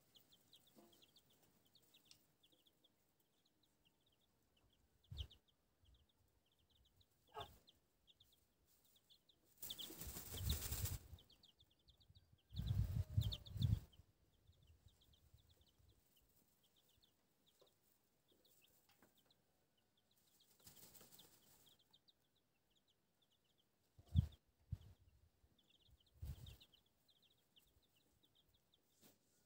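Chicks peeping in short runs of quick, high cheeps beside a brooding hen. Two louder bursts of rustling noise come in the middle, and a few knocks near the end.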